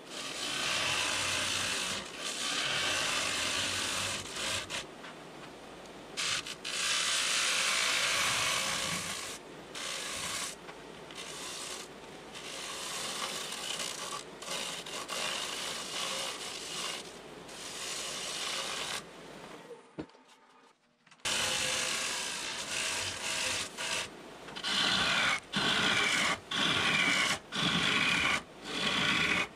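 Turning tool cutting the inside of a spinning green (wet) butternut bowl on a wood lathe, a noisy scraping cut in passes with short breaks. It stops for about a second partway through, then comes in short strokes about once a second near the end.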